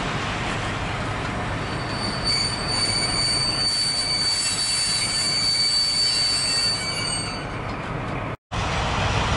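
MÁV class 431 (V43) electric locomotive and its train running into the station, with steady rumble and a high steady wheel squeal from about two seconds in that fades out near the end. The sound drops out briefly just before the end.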